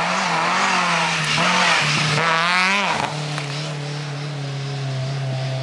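Rally car engine revving hard as the car drives up a dirt stage and passes close by. The pitch wavers up and down with the throttle and climbs, then drops sharply about three seconds in as the car goes past, and holds a lower, steady note after that.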